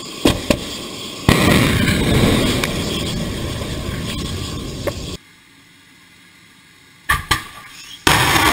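S-300 surface-to-air missiles launching: two sharp bangs, then the sudden loud rushing noise of a rocket motor that slowly fades. After a quiet stretch, two more bangs and another launch rush start near the end.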